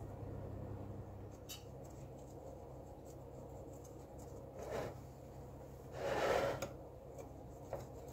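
A thin knife blade scraping around the inside edge of a metal cake pan to loosen the baked cake, with a short scrape about five seconds in and a longer, louder one about a second later. A low steady hum runs underneath.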